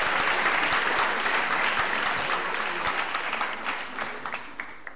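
Audience applauding, thinning out over the last second or so into a few scattered claps.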